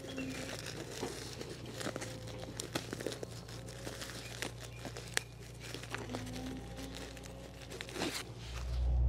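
A hand trowel and gloved hands working soil and rustling woven ground-cover fabric while planting kale seedlings: irregular scrapes, crinkles and small crunches.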